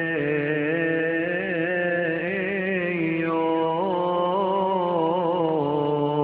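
A male voice chanting a Coptic hymn in one long, unbroken melismatic phrase, the pitch wavering and bending slowly on drawn-out notes.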